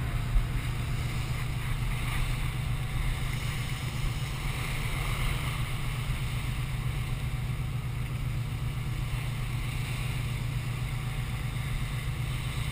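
A small cargo ship under way: a steady low engine rumble, with wind on the microphone and the rush of water at the bow.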